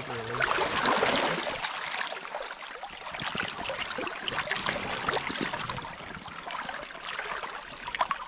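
Shallow river water splashing and sloshing in irregular bursts as a netted brown trout is handled and released, over the steady rush of the river current.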